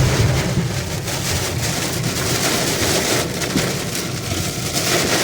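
Heavy rain and strong wind of a violent storm: a loud, steady rushing noise.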